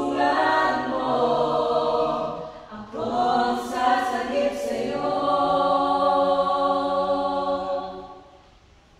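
Small mixed group of voices singing a cappella in harmony, holding long notes together. There is a short break about two and a half seconds in, a few hissed consonants just after, then a long held chord that fades away near the end.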